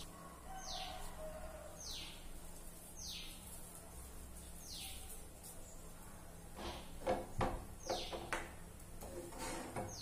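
A bird calling repeatedly: short high chirps that each fall in pitch, roughly one a second, over a faint low hum. A few light knocks come near the end.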